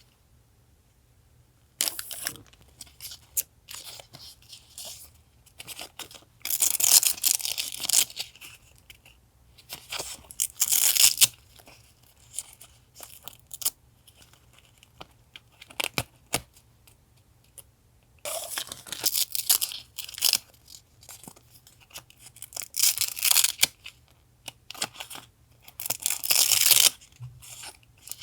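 Paper being torn by hand in several separate rips of a second or two each, with light rustling and tapping of paper between them.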